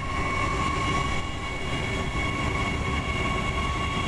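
Adelaide Metro 4000 class electric train running past: a steady electric whine of several high tones over a low rumble of wheels on the track.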